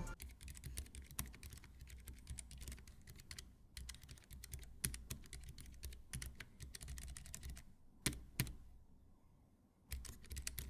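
Typing on a Keychron K3 v2 low-profile mechanical keyboard with red linear switches, a fast run of light key clicks. The typing pauses briefly near the end, then resumes.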